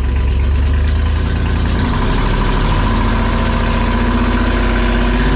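LS V8 engine swapped into a 1954 Chevy, running after a plug and wire change and still missing on cylinders 7 and 8, though less than before. It idles, then about two seconds in the engine speed rises and holds at a higher, steady speed.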